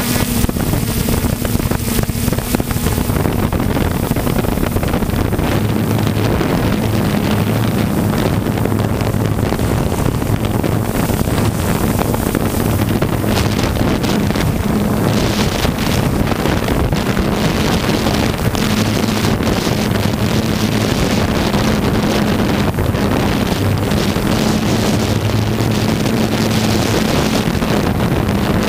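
3DR Solo quadcopter's electric motors and propellers whirring steadily in flight, a constant low hum that wavers slightly in pitch, with wind buffeting the microphone.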